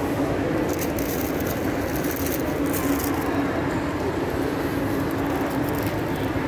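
Steady background hubbub of a busy shopping mall atrium: the murmur of many shoppers and the hall's general noise, with no single sound standing out.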